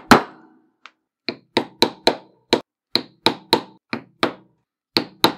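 A Barry King leatherworking mallet striking a hole punch through a leather strap: a quick run of sharp strikes, about three a second, punching the holes for Chicago screws.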